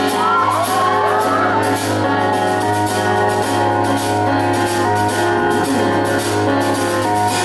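Live music: a song's intro played with a Yamaha S90ES keyboard as the lead instrument, with many held, steady notes. Several high whoops from the audience ring out over it in the first second and a half.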